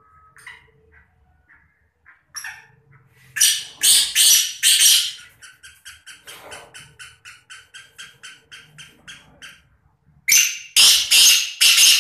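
Black francolin calling: four loud harsh notes, then a fast run of shorter notes at about four or five a second, then four more loud harsh notes near the end.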